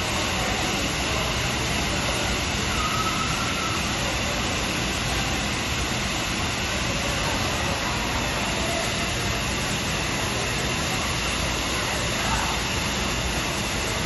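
Steady, loud rushing noise with no clear pitch, holding level throughout; a faint short whistle sounds about three seconds in.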